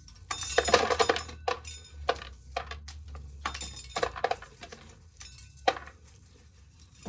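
Dry corn kernels clattering into a container in irregular bursts as an ear of corn is shelled.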